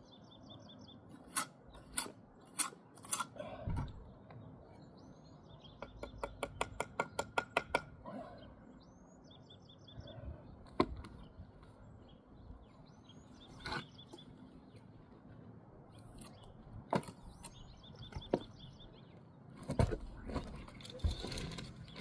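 Mason's steel trowel knocking on brick and mortar: scattered single knocks, then a quick run of about a dozen ringing taps a little past the middle. Birds chirp in short repeated trills throughout.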